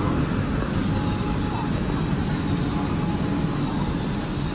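City street ambience: a steady traffic rumble with passers-by talking, and a short hiss under a second in.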